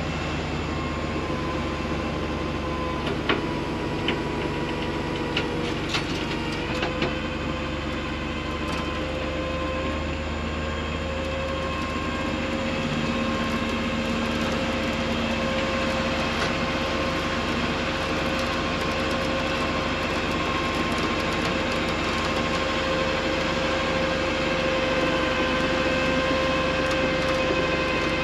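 Tow truck's winch running steadily as it pulls a vehicle up onto a tilted rollback bed: a continuous mechanical whine over a low engine hum, with a few sharp clicks and clanks in the first several seconds.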